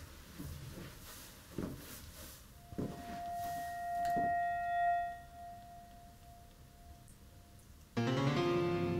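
Background film score on keyboard: a single held note swells and fades over a few seconds, then a louder, fuller keyboard music cue comes in abruptly near the end. A few faint soft noises come early on.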